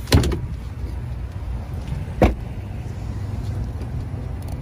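A few sharp clicks and a knock at the start, then one solid thump about two seconds in, over a steady low rumble: the pickup's rear door being handled and shut.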